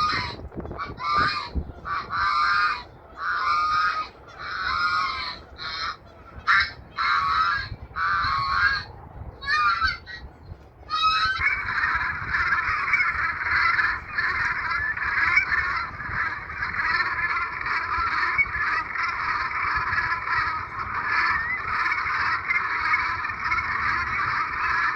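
A flock of geese honking: separate calls at first, then about eleven seconds in many geese break into a dense, continuous chorus of overlapping honks.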